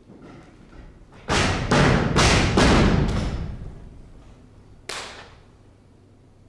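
Bare feet thudding on a stage floor: four heavy stamps or landings about half a second apart, echoing in the hall, then one more sharper thud about a second and a half later.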